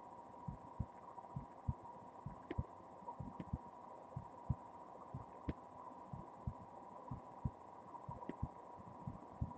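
Heartbeat picked up by a webcam microphone pressed against the chest: faint paired low thumps, lub-dub, about once a second. A steady hum and a thin high tone run underneath.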